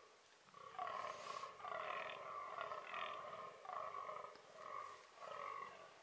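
Fallow buck groaning, a run of about six or seven short groans in close succession: the rutting call of a fallow buck.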